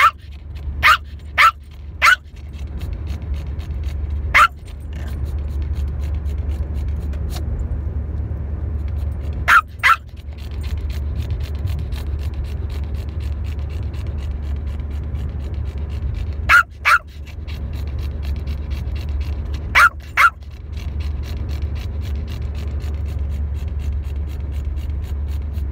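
A dog barking in short single and double barks, about ten in all, spaced several seconds apart, over a steady low hum.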